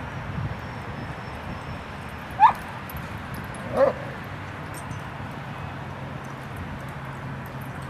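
A dog giving two short yips during rough play, about a second and a half apart: the first sharp, loud and high, the second lower and quieter.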